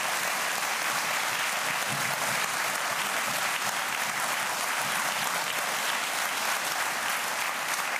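Studio audience applauding, an even, dense clapping.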